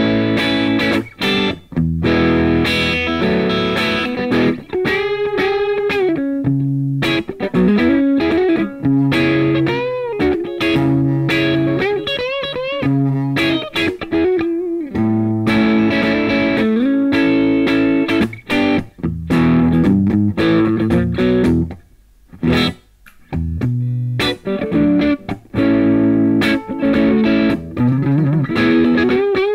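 Gibson Les Paul Classic electric guitar with Mojo "Vintage PAF" humbucking pickups, played through an amp on a lightly crunchy, near-clean tone. Chords alternate with single-note lines that carry several string bends and vibrato, with a brief pause about three quarters of the way through.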